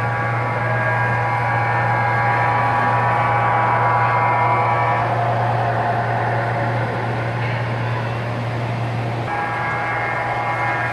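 O-scale two-rail model of the Baltimore & Ohio Columbian passenger train running past on the layout: a steady electric hum and the rolling rush of wheels on track, loudest as the cars pass close mid-way. Over it a steady pitched drone fades out about five seconds in and comes back near the end.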